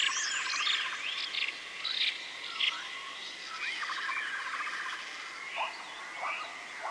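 Forest ambience: several birds whistling and chirping in quick rising and falling calls over a steady high insect drone.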